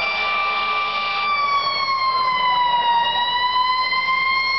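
Fire engine siren wailing as the apparatus approaches, a steady pitched tone that sags slowly in pitch around the middle and climbs back.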